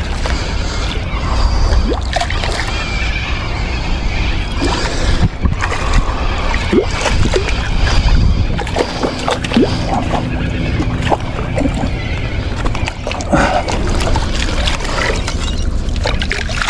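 Strong wind buffeting the microphone as a steady low rumble, with water sloshing and splashing and scattered light clicks over it.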